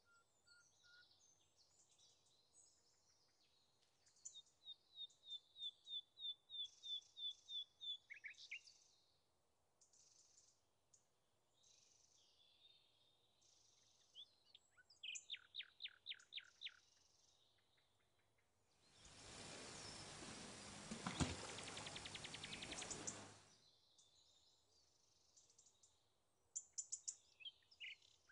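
Faint songbirds singing and chirping, including a fast trill of evenly repeated notes. For about four seconds past the middle, a rustling, crackling noise rises above the birds and then stops.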